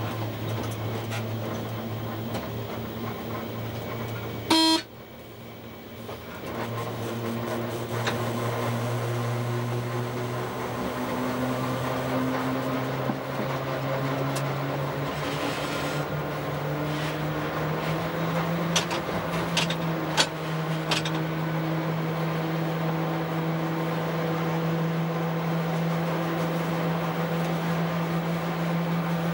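Locomotive running as the train pulls away, its low drone climbing steadily in pitch as it gathers speed. A short horn toot sounds about four and a half seconds in, and a few sharp clicks of wheels over rail joints or points come later.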